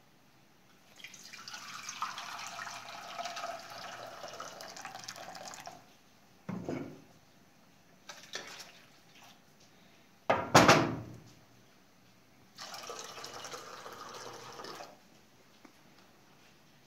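Water poured from a small saucepan into an aluminium pot, in two pours of a few seconds each. Between them come short knocks and one loud metal clank of a pot against the stove.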